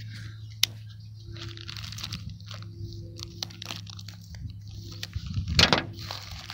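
A knife slitting open a plastic poly mailer and gloved hands pulling the plastic apart: crinkling, crackling rustles with a few sharp clicks, loudest about five and a half seconds in.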